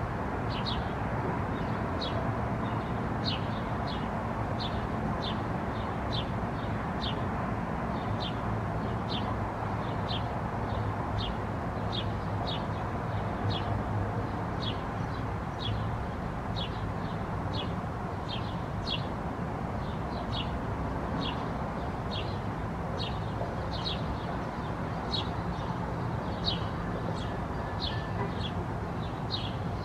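A bird chirping over and over, short high chirps at about two a second, over a steady low background rumble.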